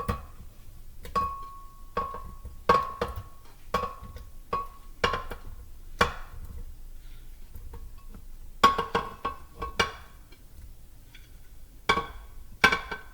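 A utensil knocking against a ringing container, about a dozen irregular clinks each with a short ring at the same pitch, as pineapple chunks are spooned into a blender jar. The knocks pause for about two seconds in the middle.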